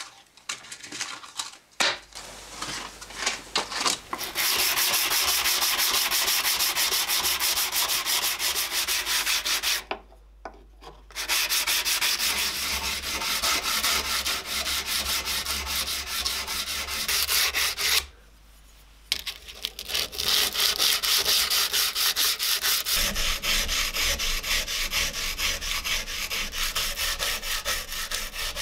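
Knife blade hand-sanded with P120 sandpaper while clamped in a vise: fast, steady back-and-forth strokes of the abrasive over the steel. The sanding starts about four seconds in, after some light handling of paper sheets, and stops briefly twice.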